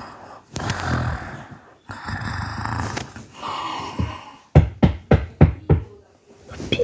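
Five quick knocks on a door, a little under half a second apart, about two-thirds of the way in, following a few seconds of soft hissing noise.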